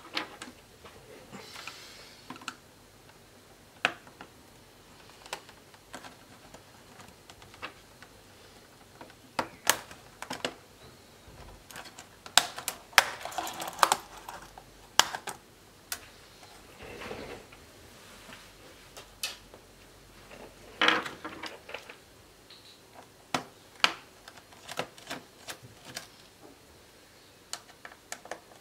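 Irregular clicks, snaps and scrapes of a Toshiba Satellite C660D laptop's plastic case and keyboard being pried and handled with hand tools. The clicking comes in denser crackling runs around the middle and again about three quarters through.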